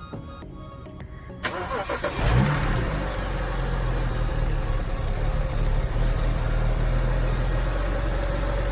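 BMW 335i's turbocharged straight-six being started: it cranks and catches about a second and a half in, flares briefly, then settles into a steady idle. It is being run with a freshly added treatment in the oil, to circulate it before the oil is drained.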